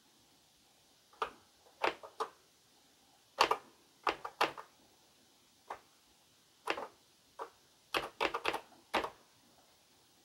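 Slow, uneven keystrokes on a DEC VT102 terminal keyboard as a command is typed: about fifteen separate clicks, a few in quick runs, with pauses between.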